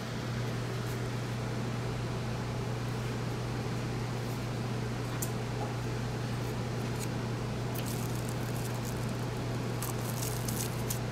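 Thin plastic sandwich bag crinkling and rustling in short spells as it is pressed and folded over a tractor fan blade, mostly in the second half. A steady low hum runs underneath.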